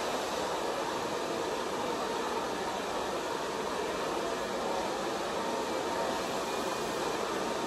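Steady rushing airflow noise from an electric blower, running evenly without change.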